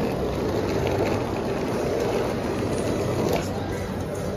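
Hard-shell rolling suitcase's wheels running over rough concrete pavement, a steady rolling rattle, with a low hum of vehicles underneath.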